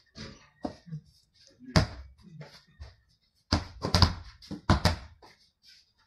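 A basketball bouncing on a hard concrete court: a handful of sharp, irregular bounces, with the loudest ones bunched together about three and a half to five seconds in.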